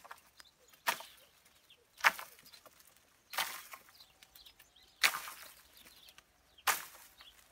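A pole striking the branches of an olive tree to knock the olives loose: five sharp whacks about a second and a half apart, each followed by a brief rustle.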